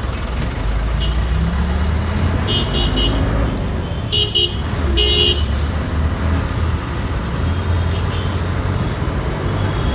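Steady road-traffic rumble of engines, with a cluster of short horn toots about two and a half to five and a half seconds in.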